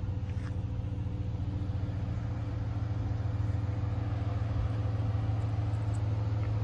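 A car engine idling steadily, an even low hum that grows slightly louder in the second half.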